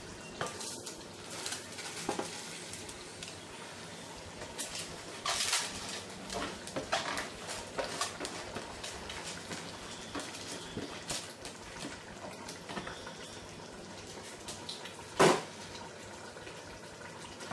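Washed rice tipped from a plastic container into a stainless steel pot, with scattered clinks and scrapes of the container against the pot and one loud knock near the end.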